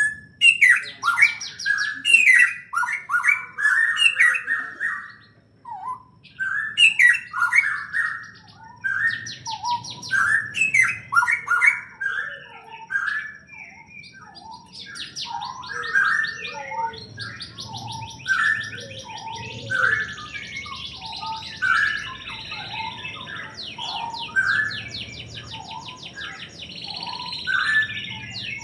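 Several birds chirping without pause: short chirps, many falling in pitch, come every half second or so, overlapped by quick high trills.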